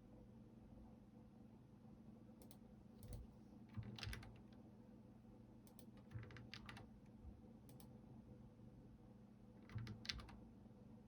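Computer keyboard being typed on in a few short bursts of keystrokes, separated by pauses of near silence.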